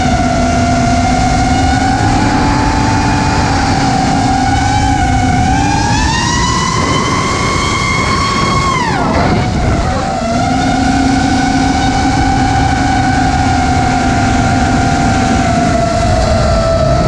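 The brushless motors of a 5-inch FPV quadcopter (XING X2207 2450KV) whining in flight over a rushing of wind. The pitch climbs a few seconds in and holds high, then dives sharply about nine seconds in and comes back up, following the throttle.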